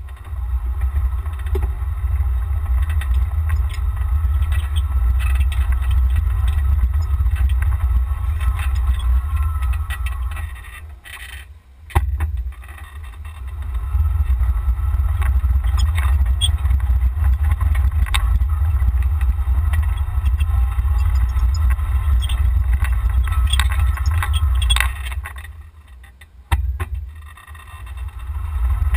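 Golf cart driving, heard mainly as a heavy low rumble of wind and motion on the cart-mounted camera's microphone. It eases off twice as the cart slows, and there is a sharp click about twelve seconds in and another near the end.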